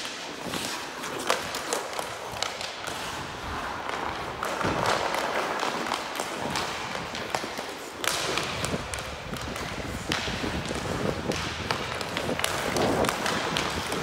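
Ice skates scraping and carving on the ice, with the hockey stick tapping the puck in many quick knocks. Louder scrapes come in a few swells where the skater turns or stops.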